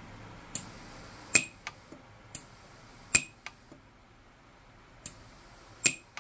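Orion 150s pulse arc (micro TIG) welder firing three single weld pulses while platinum fill wire is added to a ring seam. Each cycle opens with a soft click and a high steady whine, and about three-quarters of a second later comes a loud sharp snap as the arc fires.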